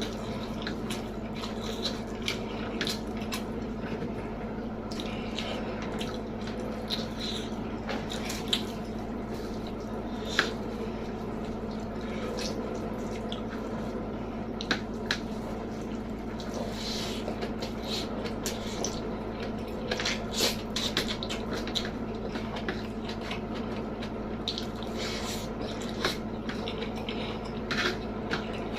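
Close-miked eating: wet chewing and mouth smacks with scattered sharp clicks, over a steady low hum.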